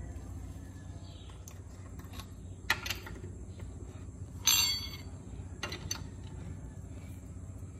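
A few sharp metallic clinks of a socket and wrench bar being fitted onto a car's wheel nut, the loudest about halfway through with a short ring, over a steady low hum.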